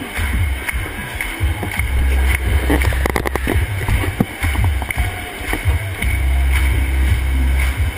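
Loud, deep bass from the show's sound system, coming in long sustained stretches with short breaks, over the noise of a dense crowd. A quick cluster of clicks comes about three seconds in.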